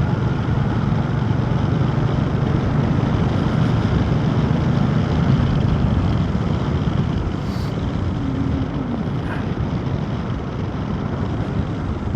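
Motorcycle riding on the road: engine running under heavy wind rush on the microphone, easing a little about halfway through.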